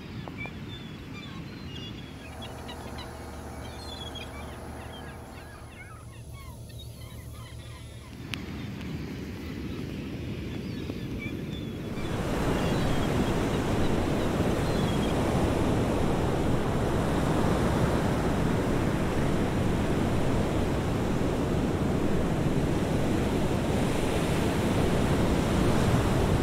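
Ocean surf breaking and washing up a sandy beach, a loud, steady rush that swells in about twelve seconds in. Before it, a quieter stretch with a low steady hum and faint high chirps.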